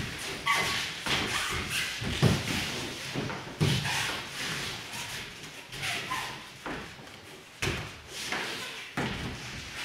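Bodies and bare feet hitting foam puzzle mats during aikido ikkyo takedowns: a string of dull thuds as a partner is taken face-down to the mat and pinned, with shuffling steps in between. The two loudest thuds come about two and three and a half seconds in.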